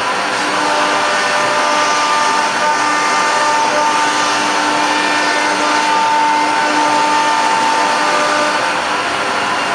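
ATC CNC router spindle running steadily with a whine while its bit engraves a door panel.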